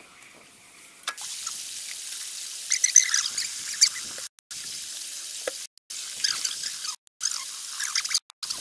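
Water running from an outdoor wall tap and splashing onto concrete as tripe from a sacrificed animal is rinsed under it by hand. It starts about a second in and breaks off briefly several times.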